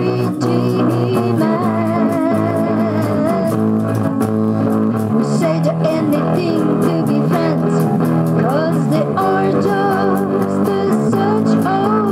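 A song: a woman singing over electric guitar chords.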